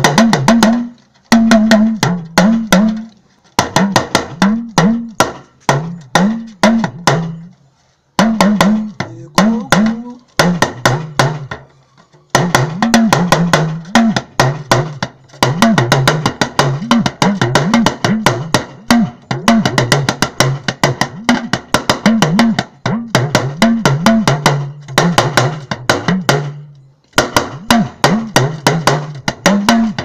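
West African talking drum, an hourglass drum held under the arm and struck with a curved stick, played in fast rhythmic phrases. Squeezing the tension cords makes its pitch bend up and down from stroke to stroke, and the playing breaks off briefly a few times.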